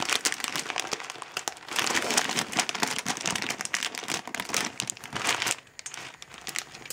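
Plastic Nesquik Duo cereal bag crinkling and rustling irregularly as hands pull it open and handle it.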